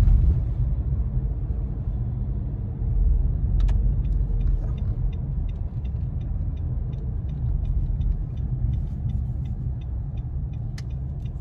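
Car cabin noise while driving: a steady low rumble from the engine and tyres, with a low thump right at the start. From about four seconds in, the turn-signal indicator ticks regularly, about three ticks a second.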